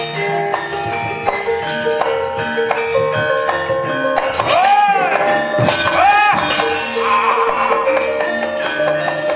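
Javanese gamelan playing a steady, interlocking pattern on bronze metallophones and gongs for a wayang kulit shadow-puppet fight scene. About halfway through come two short rising-and-falling cries, followed by a brief burst of metallic clattering.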